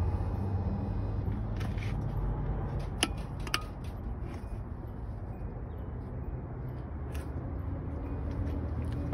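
A steady low engine hum, like a vehicle idling nearby, with two sharp clicks about three seconds in.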